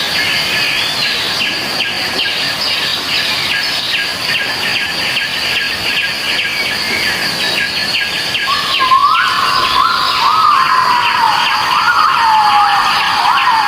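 Dense chorus of birds chirping rapidly in a tropical forest soundscape. About eight seconds in, a louder, lower call joins with wavering, siren-like rises and falls in pitch and carries on.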